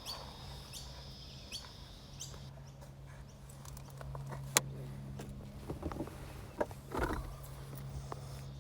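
Steady low hum with a few scattered faint clicks and one sharper click a little past the middle; a thin high whine over it stops about two and a half seconds in.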